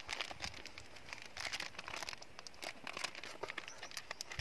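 Plastic fishing-bait packet crinkling as it is handled and opened, many short sharp crackles at irregular intervals.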